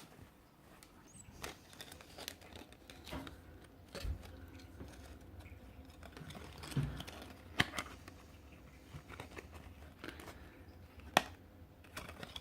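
Packaging and a plush item being handled, with crinkling, rustling and scattered short clicks; two sharper clicks stand out, one past the middle and one near the end.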